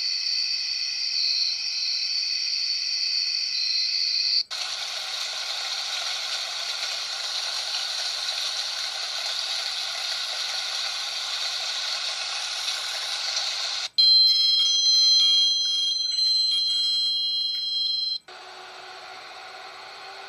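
Ambient sound loops from a white-noise phone app played one after another through the phone's speaker, each cutting off suddenly: a steady high-pitched tone for about four seconds, then an even hiss, then overlapping ringing tones about fourteen seconds in, and near the end a quieter hiss with a low hum.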